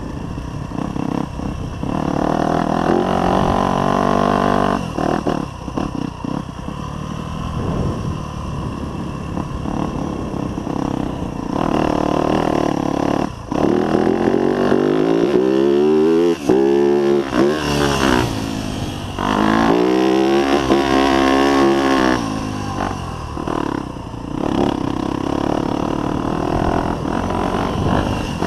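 Yamaha YZ250F dirt bike's 250 cc four-stroke single-cylinder engine being ridden hard, its pitch climbing and dropping again and again as the throttle is opened and closed and the gears change, with the biggest swings around the middle.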